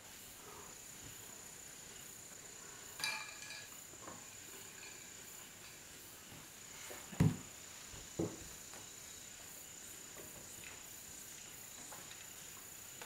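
A steady high insect trill, crickets, runs under a quiet room. About three seconds in comes a ringing glassy clink, as a glass of iced drink is lifted off the small wooden table, and a little past halfway two dull thumps.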